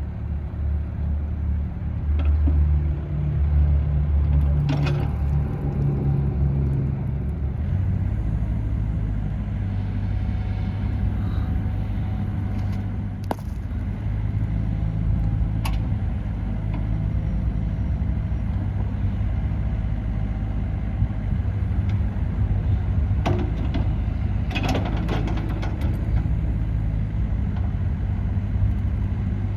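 Komatsu PC50MR-2 mini excavator's diesel engine running with a steady low hum, working harder for the first several seconds and then settling. A few sharp metallic clanks come in about halfway and again near the end.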